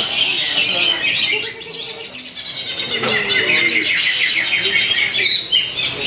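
Green leafbird (cucak hijau) singing a fast, unbroken stream of varied chirps, trills and whistles, with a long high whistle about a second and a half in.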